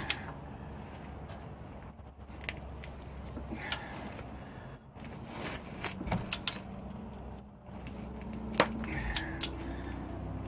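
Socket-wrench ratchet clicking in short, irregular runs with light metal tool clinks, as the nut on the outer tie rod end's stud is run down while a second wrench holds the stud from spinning. A low steady hum runs underneath.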